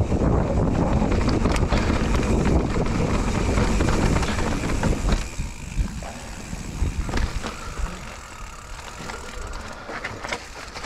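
Mountain bike riding down a rough dirt forest trail: wind buffeting the camera microphone and tyres rumbling and rattling over dirt and stones. About five seconds in the noise drops sharply as the bike slows, leaving scattered clicks and rattles.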